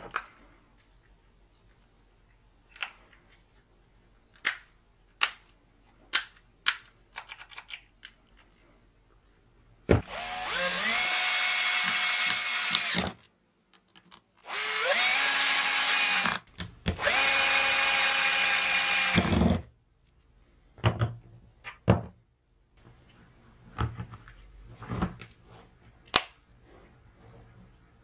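Cordless drill motor running in three bursts of two to three seconds, each spinning up quickly to a steady high whine and cutting off sharply. Sharp handling clicks of the plastic tool body come before and after the runs.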